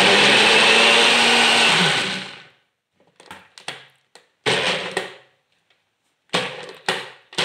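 NutriBullet personal blender motor running as it blends ripe mango halves, a loud steady whir with a low hum for about two seconds before it stops. It is followed by a few shorter bursts of sound.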